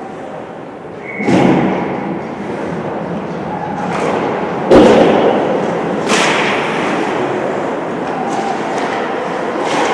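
Four sharp knocks and thuds ring out over a steady background of noise in a large hall. The loudest, deepest one comes a little before halfway through.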